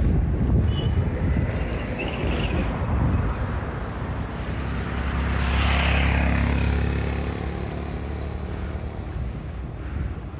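Wind buffeting the microphone of a moving cyclist, with a motor vehicle passing about midway: its engine hum and tyre hiss swell to a peak around six seconds in, then fade.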